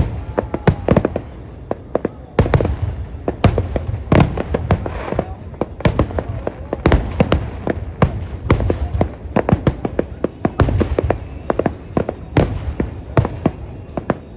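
Aerial fireworks going off in a rapid barrage: sharp cracks and bangs several times a second, overlapping deep booms.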